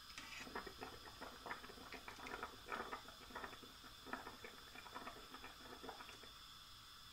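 Light splashing and dripping of water as blanched squid tubes are fished out of a pot of hot water and dropped into a bowl of cold water: a run of soft, irregular splashes that stops about six seconds in.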